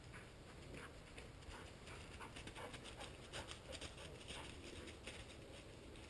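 Faint, irregular crackling and rustling of footsteps moving through dry field grass and brush, a few crackles a second, thickest in the middle.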